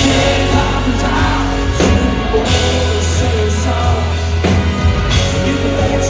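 A live band playing a country song: acoustic guitars and drums over a steady bass line.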